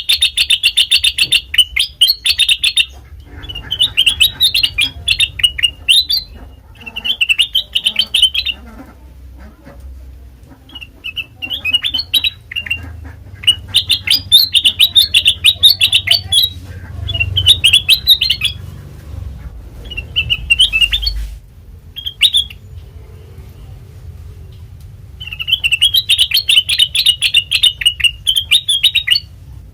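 Kutilang emas bulbul giving rapid, chattering trills in repeated bouts of one to three seconds with short pauses between them.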